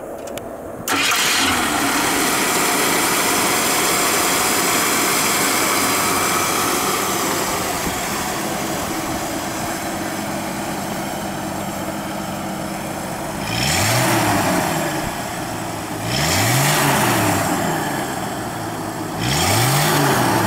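AMC 258 cubic-inch inline six in a 1975 AMC Pacer running at idle. It comes in abruptly about a second in, and near the end the throttle is blipped three times, each rev rising and falling back to idle.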